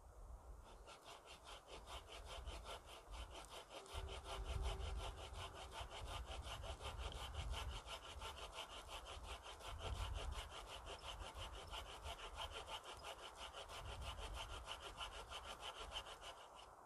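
Hand saw cutting through a log with quick, even back-and-forth strokes, starting about a second in and stopping near the end.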